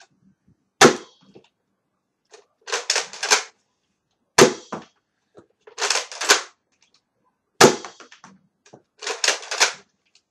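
Nerf Retaliator dart blaster fired three times, each shot a sharp snap about three and a half seconds apart. Each shot is followed about two seconds later by a short rattling clatter, the pump slide being worked to prime the next shot.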